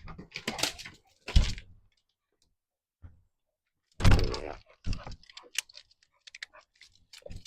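A string of knocks and clattering handling noises, the loudest a sudden thump about four seconds in, followed by light clicks.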